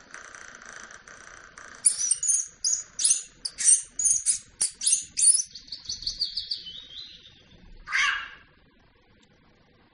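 Recorded bird chirps played through a laptop speaker. A steady high chirring gives way about two seconds in to a run of loud, sharp chirps, then quicker twittering, then one short call near the end before it goes quiet.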